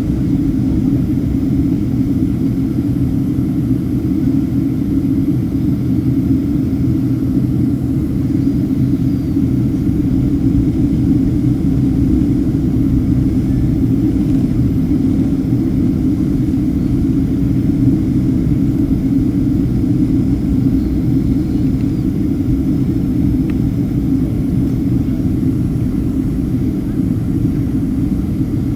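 Steady cabin noise of a Boeing 767-300ER airliner in flight: a constant low rumble of jet engines and airflow past the fuselage.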